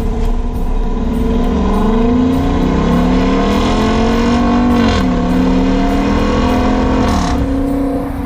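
2021 Dodge Durango R/T's 5.7-litre HEMI V8 accelerating, its note climbing steadily. The pitch drops sharply about five seconds in, as at an upshift, then climbs again and falls off near the end.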